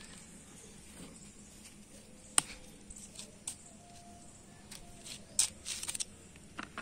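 Handling noise: a few sharp clicks and light rustles, the loudest click about two and a half seconds in and a short cluster of them near the end, over a faint steady background hiss.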